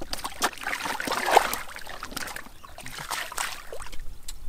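Shallow muddy water and mud sloshing and splashing as a person wades and kneels in a drained rice-field ditch, groping by hand for fish: irregular splashes and squelches, the loudest about a second and a half in.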